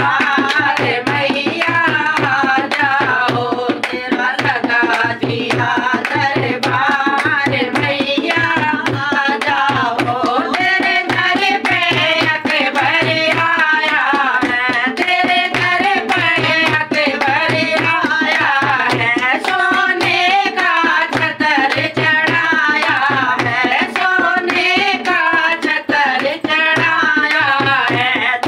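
Women's voices singing a Hindi devotional bhajan together, accompanied by a dholak (two-headed barrel drum) played in a steady rhythm and by hand-clapping in time.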